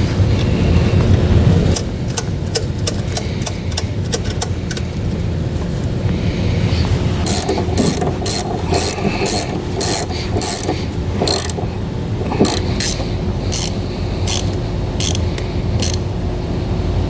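Hand ratchet wrench clicking as the nuts on the cable terminals of a snowplow motor solenoid are tightened. It starts with a quick run of clicks, then gives slower, even clicks about two a second.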